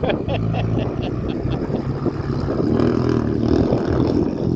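A vehicle engine running under load through floodwater, its pitch rising a little around the middle. A quick run of light ticks sounds in the first second and a half.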